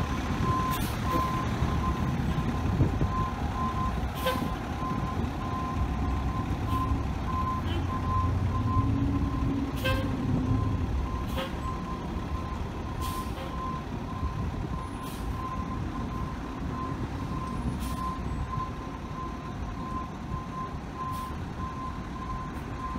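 Fire department ladder truck reversing slowly: its backup alarm beeping steadily over the low rumble of the diesel engine, with a few short sharp clicks.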